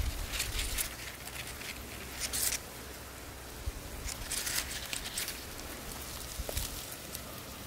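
Oleander leaves rustling in a few short bursts, over a faint low rumble.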